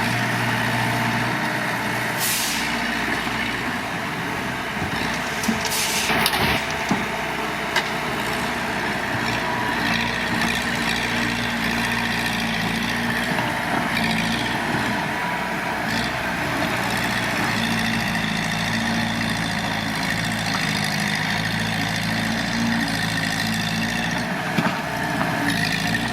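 Engines of a bulldozer and a dump truck running steadily, with brief hissing bursts about two and six seconds in.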